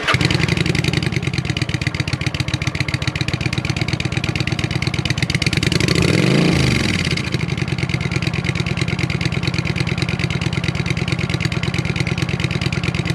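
Kawasaki Vulcan 900's V-twin idling through a Falcon Double Groove full exhaust system with its dB killers installed. About six seconds in it is revved once, rising in pitch and falling back to idle.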